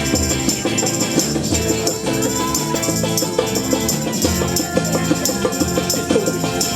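Rocksteady band playing live: full-band music with a steady beat and shaker-like percussion.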